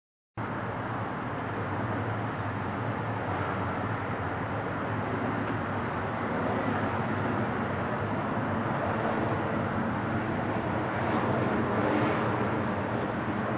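Jet engines of an Airbus A319 on landing approach with gear down: a steady rushing engine noise that sets in suddenly just after the start and grows slightly louder as the plane comes nearer.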